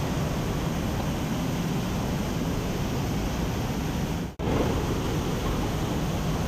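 Large waterfall rushing: a steady, dense wash of falling water, cut off for a split second a little over four seconds in.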